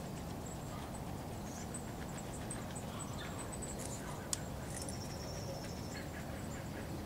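Outdoor park ambience: a steady low rumble with small birds' short high calls scattered through it and one held high note a little before six seconds. A single sharp click comes a little after four seconds.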